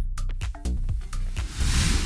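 Background music with a steady beat and bass, and a swelling hiss near the end.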